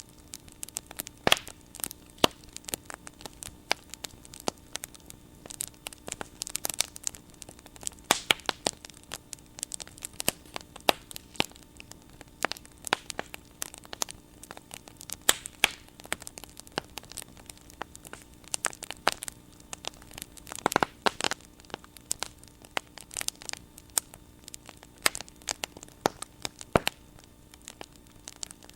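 Wood bonfire crackling, with irregular sharp pops and snaps and a denser flurry about three-quarters of the way through. A faint steady hum runs underneath.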